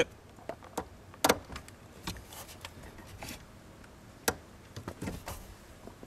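Scattered plastic clicks and knocks from a new brake light switch being pushed into its spring-loaded retaining clip above the brake pedal. The sharpest clicks come about a second in and again past four seconds, with a few quicker ones near the end.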